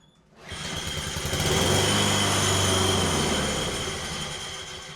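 Honda lawn mower engine starting on a pull of the cord, running for a couple of seconds, then winding down and dying away as the control handle is released: the safety shut-off now works with its wire reconnected to the ignition coil.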